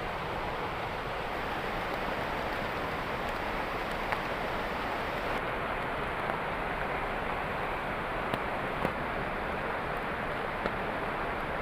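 Heavy rain falling steadily: a dense, even hiss with a few sharp drip taps.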